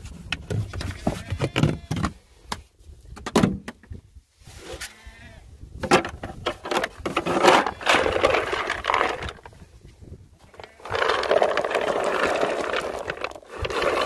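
Farm animals calling in a run of separate cries, with a long, loud cry from about eleven seconds in.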